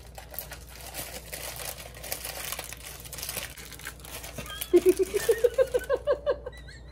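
Plastic inner bag of a boxed cake mix crinkling and tearing as it is pulled open by hand, then a woman laughing in quick bursts near the end as the powder puffs out.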